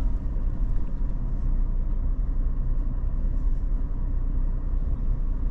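Steady low rumble of a car driving along.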